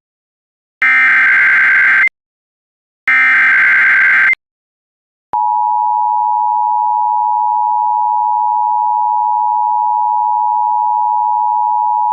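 Emergency Alert System SAME header: two buzzy digital data bursts about a second apart, the end of the three-burst header, then, after a brief gap, the steady attention tone sounding from about five seconds in. It introduces a tornado warning.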